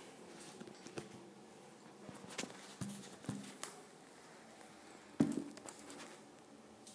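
Scattered light knocks and rustles from cardboard and work materials being handled. The loudest knock comes about five seconds in.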